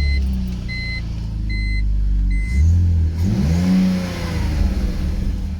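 BMW E46 325Ci's 2.5-litre straight-six, fitted with a short-ram cold air intake, idling just after starting while a warning chime beeps about every second. About three seconds in the engine is revved once, the pitch rising and falling back to idle.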